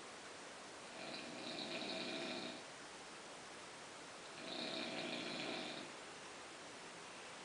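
A sleeper snoring through the nose: two drawn-out, even snores, each about a second and a half long, coming a little over three seconds apart.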